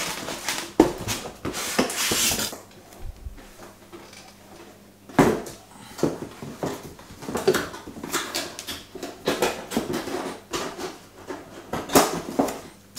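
Cardboard packaging box and polystyrene foam inserts being handled: rubbing and scraping with scattered knocks, the loudest knock about five seconds in.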